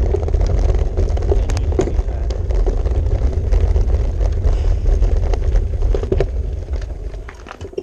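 Wind rumbling over the microphone of a handlebar-mounted camera on a moving road bike, with scattered clicks and rattles from the bike. It fades near the end as the bike slows.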